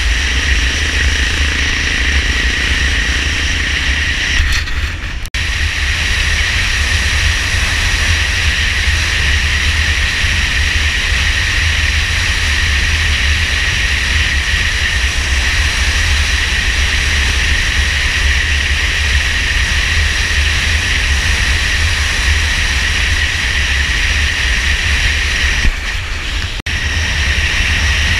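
Motorcycle riding at speed: wind buffeting a bike-mounted camera, with engine and tyre noise underneath. The sound drops briefly twice, about five seconds in and near the end.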